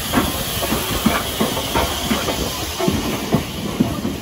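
Steam train running, with a steady hiss of steam and irregular clanks and knocks from the train.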